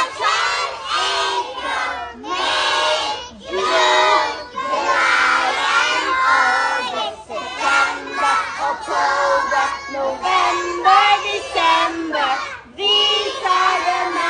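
A group of young kindergarten children singing a song loudly together in unison, in short rhythmic phrases, as they do the hand actions.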